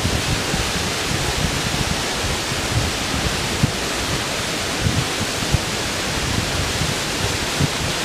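Mountain stream cascading over boulders: a steady rush of white water.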